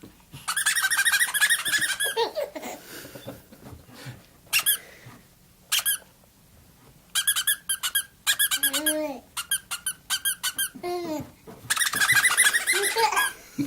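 The bird's high, squeaky chirps and trills: quick trilled runs near the start and near the end, with single chirps in between. A couple of short, lower falling sounds come about nine and eleven seconds in.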